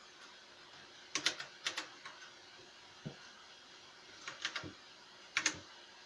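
Keys on an MK Disco mechanical keyboard with KBTalking switches being pressed: about four short groups of two or three sharp clacks, with a duller single knock near the middle.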